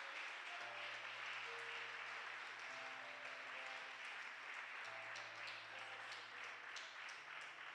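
Congregation applauding, a steady even clapping throughout, with faint sustained low notes underneath.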